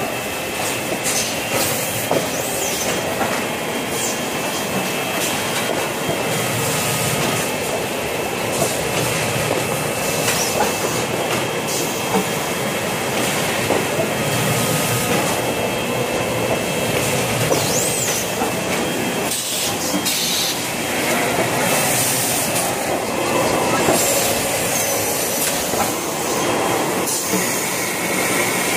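Automatic toilet-paper and kitchen-towel roll packaging machine running: a steady clatter of conveyors and pushers with many clicks and knocks, and a few short high squeaks.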